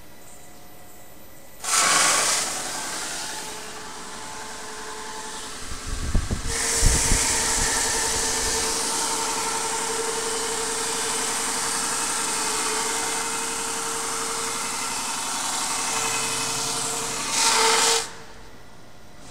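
Ascot S300 PROFIL brushing machine running, its rotating brushes distressing a wooden board: a loud hiss with a steady hum starts suddenly about two seconds in, a few low thumps come around six seconds in, and the hiss then runs steadily before cutting off suddenly near the end.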